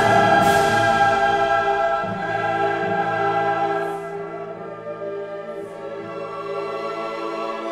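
Background music: a choir holding long sustained chords over orchestral backing, with a new chord swelling in at the start and the music softening after about four seconds.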